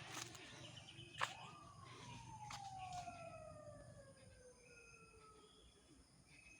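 A faint siren winding down: one long tone falling steadily in pitch over about four seconds, just after a sharp click about a second in.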